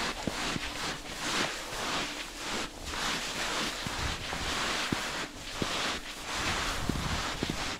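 Hiking boots plunging and sliding down a slope of soft snow, a crunching swish at each step, about two steps a second.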